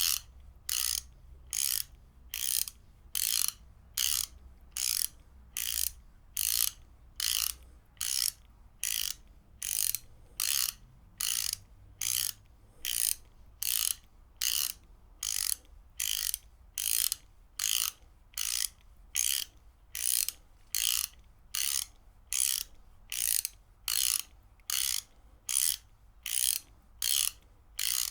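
Ratchet wrench clicking over its pawl in short, evenly spaced bursts, about three every two seconds, each burst one swing of the ratchet.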